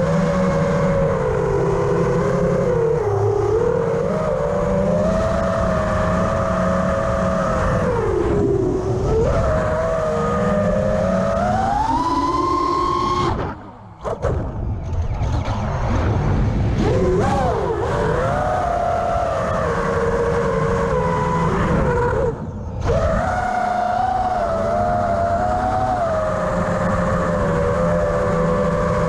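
Racing quadcopter's electric motors and propellers whining, the pitch rising and falling with the throttle. The sound almost cuts out for under a second about 13 seconds in, the mark of a throttle chop, and dips briefly again about 22 seconds in.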